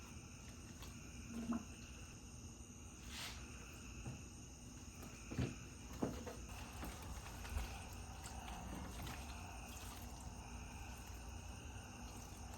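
Night insects calling steadily in a high, continuous chorus at dusk, with a few soft knocks mixed in.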